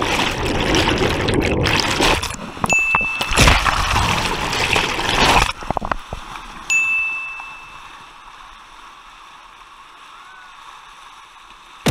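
River whitewater splashing and rushing loudly around a paddled kayak for about five seconds, then falling back to a steady quieter river hiss. A short, high, steady beep sounds twice, about three seconds in and again about seven seconds in.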